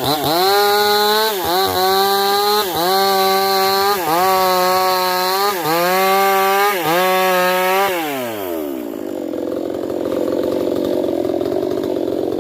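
Two-stroke chainsaw engine revving high, its pitch dipping briefly about every second and a half, then winding down about 8 seconds in. A quieter steady noise follows.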